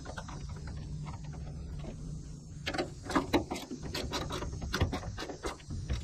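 Hand ratchet clicking as it drives the bolt of a new rubber tailgate upper bumper, the clicks coming quicker and louder from about two and a half seconds in, over a low steady rumble.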